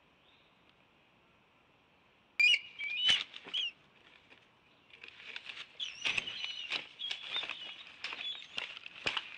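Juvenile bald eagle wings flapping and rustling at the nest, starting suddenly about two and a half seconds in with high chirping calls, then more flapping, rustling and chirps after a short lull: a fledgling coming back to the nest.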